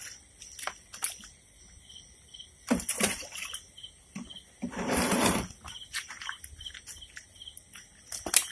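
Night insects trilling steadily, with a short chirp repeating. A few sharp knocks and a splashy, rustling burst about five seconds in, from hands sorting live fish in a water-filled plastic basin.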